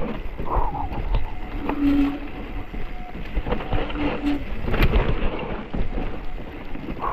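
Mountain bike riding over rough ground: wind rushing on the microphone with an uneven rumble and many knocks and rattles from the bike, and a few brief squeaking tones.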